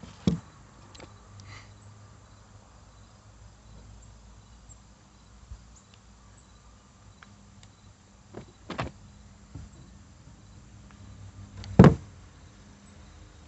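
Hands at work on small wiring parts: a few sharp clicks and knocks, the loudest near the end, over a faint steady low hum.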